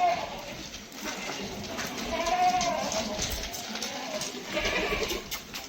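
Castrated male goats bleating: one bleat right at the start and a longer one about two seconds in, with more goat calls near the end.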